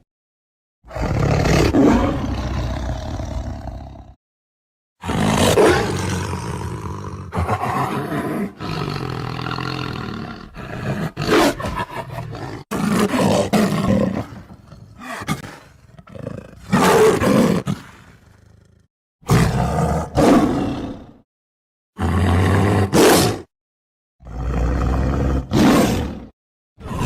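A string of tiger roars and growls, each cut off abruptly, with short gaps of dead silence between them.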